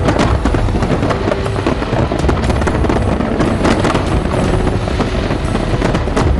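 Fireworks display going off in a rapid barrage of bangs and crackles, with music underneath.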